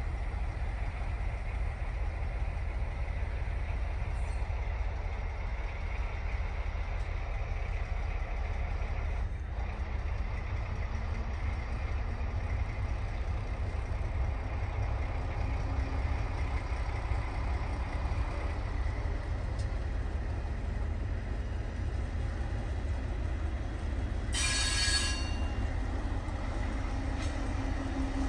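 Diesel locomotive moving slowly, a steady low rumble with a faint engine note that rises gradually. About 24 seconds in comes a brief high-pitched squeal of the wheels.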